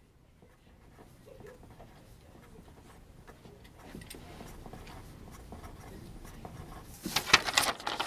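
Pencil scratching on paper as loops are drawn. Near the end comes a louder, sharp rustle of the paper sheet being handled.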